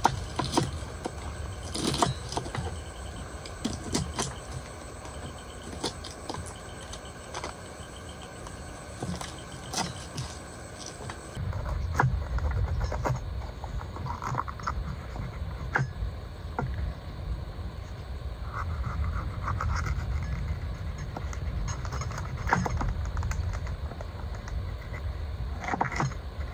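Knife cutting vegetables on a chopping board: irregular taps and clicks of the blade. About eleven seconds in, a low steady rumble joins them.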